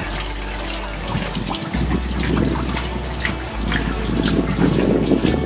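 Water splashing and trickling off a turning wooden water wheel, a steady patter of drops and spills.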